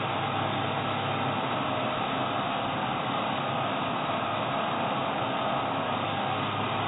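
Angle grinder cutting steel all-thread (threaded rod), the disc running steadily against the metal with no let-up.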